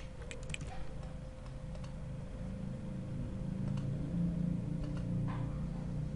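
Computer mouse clicks: a few quick ones about half a second in and another about five seconds in, over a steady low background hum.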